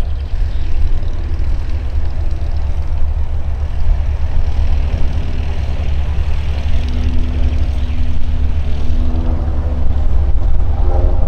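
Single-engine pusher propeller light aircraft (Rutan Long-EZ) droning overhead, its engine and propeller tone growing stronger near the end as it turns toward the listener, under a loud, unsteady low rumble.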